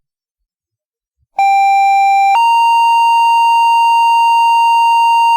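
Two-tone sequential paging tones on a fire-dispatch radio channel: a steady tone lasting about a second, then a slightly higher tone held for about three seconds. These are the alert tones that set off the fire department's pagers before a voice dispatch.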